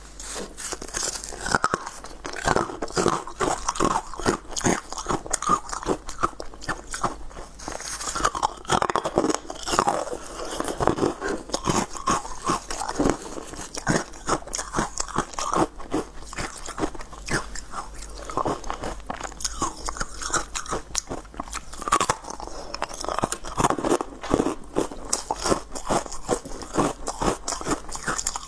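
A person biting and chewing hard pieces of moulded coloured ice, making a dense, continuous run of crunches and cracks.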